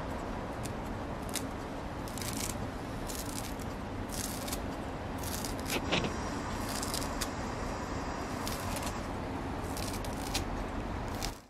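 Kitchen scissors snipping fresh dill and parsley: short, crisp snips at irregular intervals, roughly one every second, over a steady background hiss.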